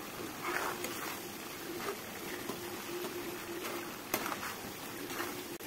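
Diced raw mango frying in plenty of oil in a kadai, a soft steady sizzle. A few times a perforated steel ladle scrapes and stirs against the pan, with one sharp tap near the end.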